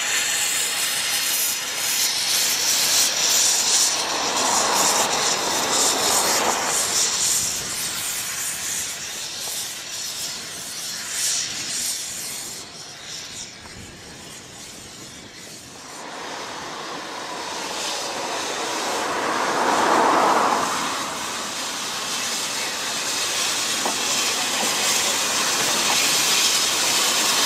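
The Ffestiniog Railway's small narrow-gauge steam locomotives Palmerston, Welsh Pony and Prince working a train along the line, with steam hissing from their open cylinder drain cocks and wheels running on the rails. The sound fades about halfway through, then swells again as the engines pass close.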